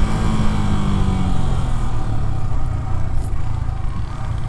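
Yamaha YZF R15's 155 cc single-cylinder engine running steadily, with the pitch easing down slightly over the first second or so.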